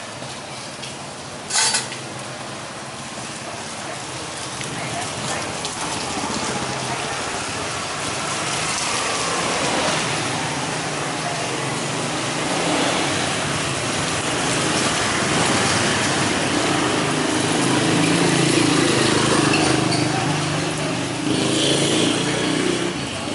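Market ambience: indistinct voices over a steady noisy background, the voices growing louder in the second half. There is one sharp click about one and a half seconds in.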